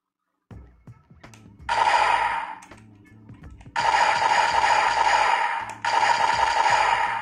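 Bandai DX Two Sidriver toy in gun form, with the Holy Wing Vistamp fitted, playing loud electronic sound effects from its speaker: a short burst about two seconds in, then two longer bursts back to back from about four seconds.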